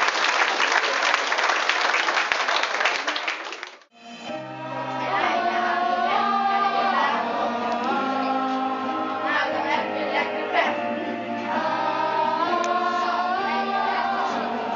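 Audience applauding, cut off abruptly about four seconds in. Then a group of children singing together over an instrumental backing.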